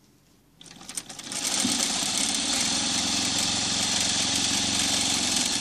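Industrial sewing machine starting about half a second in, speeding up within a second and running steadily at full speed while stitching a seam through several layers of fabric, then stopping right at the end.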